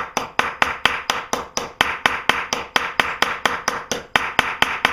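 Rapid, steady light hammer taps on a nail, about four or five strikes a second, metal on metal, working the nail so that its washer fits snug.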